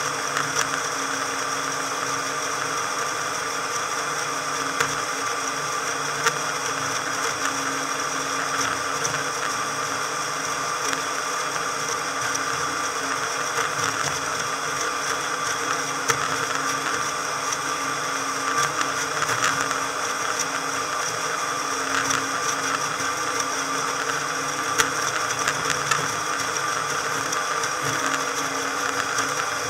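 Motorboat engine running steadily under way, a constant drone of fixed tones over water and hull noise, with a few sharp ticks scattered through it; the recording is sped up four times.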